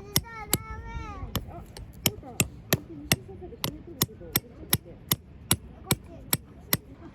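Steady hammering: about twenty evenly spaced sharp blows, nearly three a second, a hammer striking a hard object over and over without a break.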